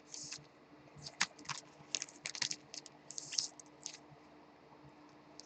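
Light, irregular clicks and short rustles of trading cards and paper envelopes being handled and shuffled by hand.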